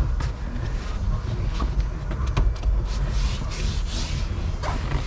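Handling noises of car interior trim work: scattered light clicks and scuffing rubs over a steady low rumble.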